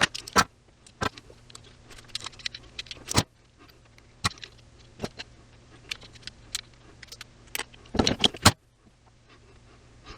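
Thin heating-element wire being coiled by hand, giving scattered light metallic clicks and jingling rattles, with a denser burst of clicks about eight seconds in.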